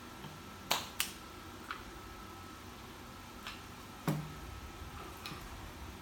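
A few sharp clicks and light knocks from small hard parts of a motorcycle tail light being handled: two close together about a second in, then a duller knock about four seconds in, with fainter ticks between.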